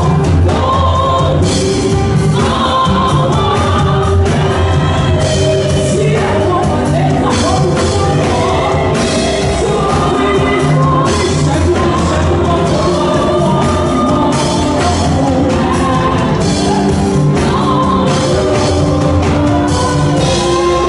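Live gospel music amplified through a PA: a woman sings lead into a handheld microphone over band accompaniment with a strong bass and a steady beat.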